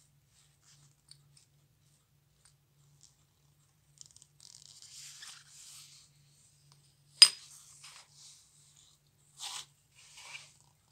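Small metal parts of a 1930 Junghans wristwatch being worked apart by hand: light scraping and scratching, one sharp metallic click about seven seconds in, then two short scratchy sounds near the end.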